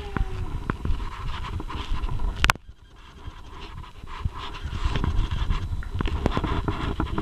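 English Cocker Spaniel puppy panting, with scattered small clicks and handling rustle. A sharp click comes about two and a half seconds in, after which the sound drops away briefly and then returns.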